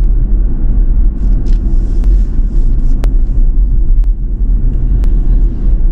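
Steady low road and tyre rumble inside the cabin of a moving Ford Mustang Mach-E electric car, with no engine note. A couple of faint ticks come through it.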